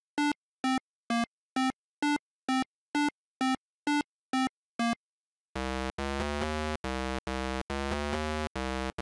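8-bit, video-game-style synthesizer blips. A short, high beep repeats a little over twice a second for about five seconds, keeping time with the pixel-art raccoon's walking steps. Then comes a lower, buzzier run of notes with brief breaks between them as the bear walks in.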